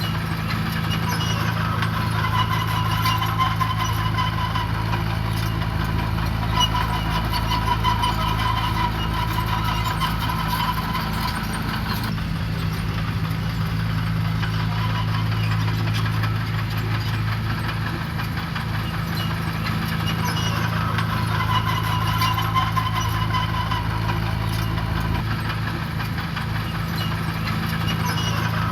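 Heavy construction-machine diesel engine running steadily, with a higher whine that swells and fades every several seconds.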